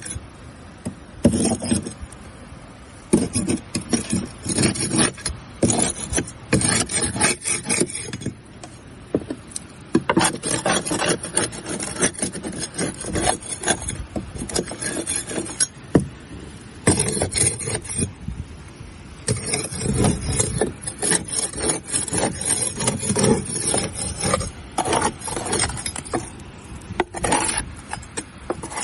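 Barnacles being scraped off a boat hull: a hard scraper rasping over the shells in uneven strokes, with crackling and cracking as the shells break away, broken by a few short pauses.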